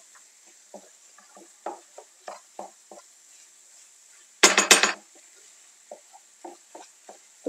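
Wooden spatula stirring diced zucchini with pepper and tomato paste in a nonstick frying pan: a run of short, soft scrapes and taps against the pan, with one much louder scrape lasting about half a second midway through.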